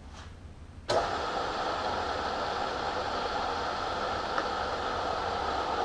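Milling machine's spindle motor switched on about a second in, then running steadily with a hum and light whine, set to a reduced speed for tapping.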